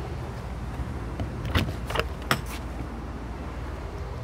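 Steady low hum of the Jayco Seismic 4113 toy hauler's rooftop air conditioners running, with a few light knocks or taps about one and a half to two and a half seconds in.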